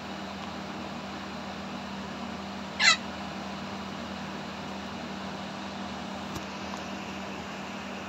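A single brief, loud squawk from an Indian ringneck parakeet about three seconds in, over a steady background hum.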